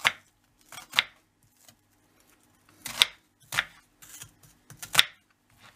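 Kitchen knife cutting an onion on a wooden cutting board: a handful of separate, crisp cuts at an uneven pace, the loudest about three and five seconds in.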